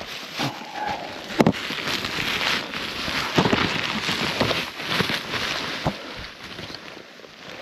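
Snowshoe steps crunching through deep snow, irregular thuds over a steady rush of wind on the microphone.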